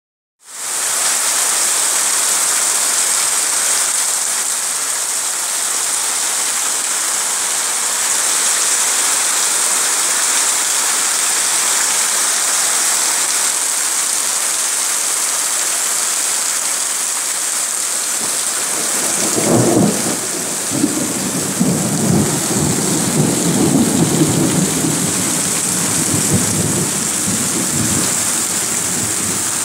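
Heavy tropical rain pouring steadily, a dense hiss throughout. About two-thirds of the way in, thunder rumbles and crackles for several seconds.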